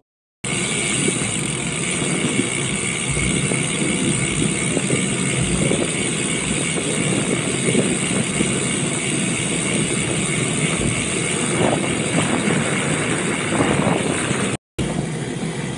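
Steady traffic and road noise heard from a moving bicycle, cutting out briefly near the end.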